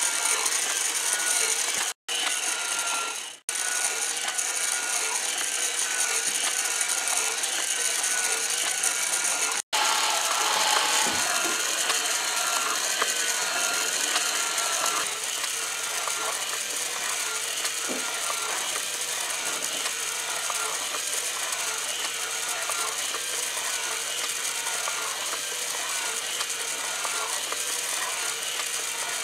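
Clear plastic Haynes model engine kit running on its electric motor: plastic gears, crankshaft, pistons and valve gear clattering steadily, with a faint whine that rises and falls in a repeating cycle. The sound drops out briefly three times.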